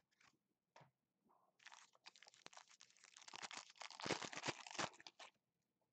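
Foil wrapper of a trading-card pack being torn open and crinkled by hand: a dense crackling that starts about a second and a half in, grows louder, and stops a little before the end.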